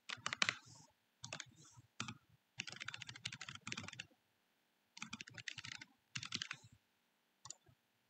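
Typing on a computer keyboard in quick bursts of keystrokes with short pauses between them, then a single click near the end.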